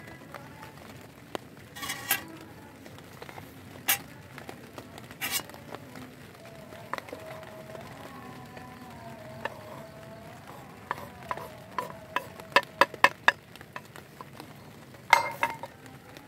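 Scattered sharp clicks and knocks, with a quick run of them about twelve seconds in and a louder one near the end, over a faint wavering tone in the middle.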